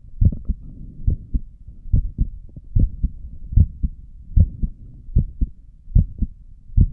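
Human heartbeat heard through a stethoscope at rest: steady, evenly spaced lub-dub pairs of deep thumps, about 75 beats a minute.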